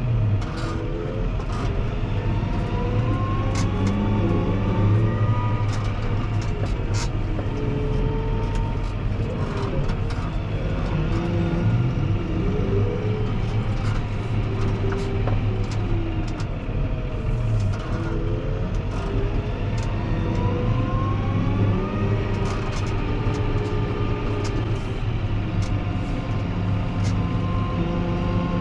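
Fendt 724 Vario tractor's six-cylinder engine running steadily as it drives and turns with a front snow plough, with a whine that rises and falls with its speed. Sharp clicks are scattered throughout.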